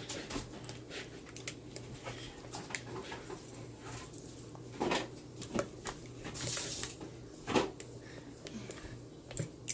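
A utensil scraping and clicking against a bowl as slime is stirred, in scattered strokes, with a longer scrape about six and a half seconds in.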